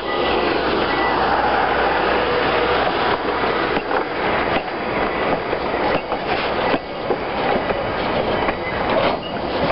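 Passenger coaches rolling past at close range: a steady rumble of steel wheels on rail, with irregular clicks and knocks as the trucks pass over rail joints.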